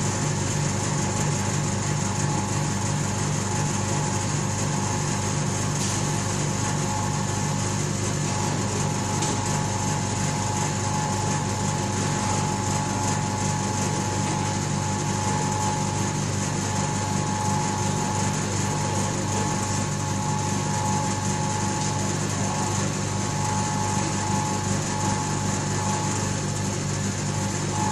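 Furnace vacuum pump running steadily with a fast, even pulsing hum and a steady whine, pumping the furnace chamber down to vacuum.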